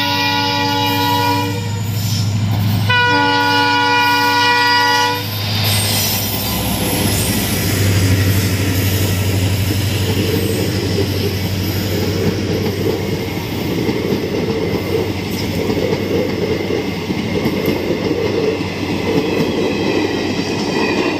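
A passenger train passing, hauled by a diesel locomotive. The locomotive sounds its horn twice: a blast of about a second and a half, then a longer one of about two seconds. The coaches then roll by with a steady clatter of wheels on the rails over a low engine drone.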